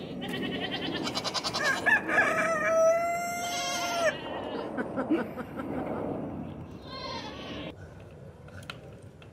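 A rooster crowing once: a quavering build-up leading into one long held final note that cuts off about four seconds in. A shorter, quavering animal call follows around seven seconds in.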